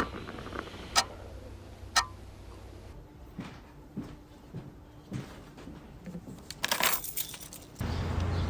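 A clock ticking once a second, then scattered small knocks and clicks, a brief clattering jangle, and a steady hum starting near the end.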